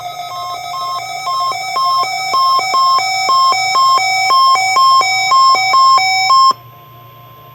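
Weather radio receiver sounding its electronic alert for a Required Weekly Test. Beeps alternate between two pitches about three times a second over a steady tone, growing louder, then cut off suddenly.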